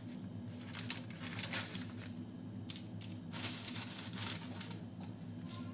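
A kitchen knife cutting strips of puff pastry on baking paper, and the strips being set down on a paper-lined baking tray: scattered short scrapes and rustles of the paper.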